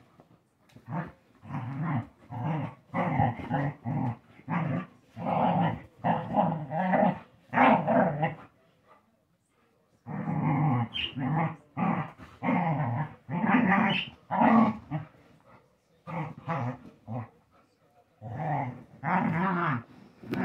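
Two dogs play-fighting, growling at each other in a rapid string of short growls broken by a pause of over a second about eight seconds in.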